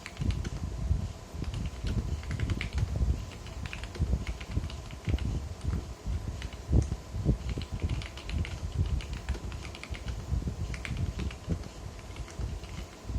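Typing on a plateless 60% mechanical keyboard in a Lego case with stock Gateron Yellow linear switches: a rapid, uneven run of keystrokes.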